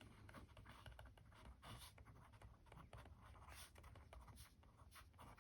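Faint, irregular scratching of a brass Everyman Grafton Mini Twist ballpoint pen writing on paper.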